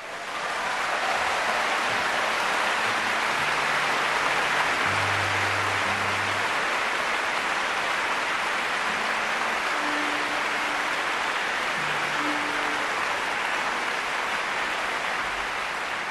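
Audience applauding steadily in a large concert hall, swelling in within the first second and holding even throughout.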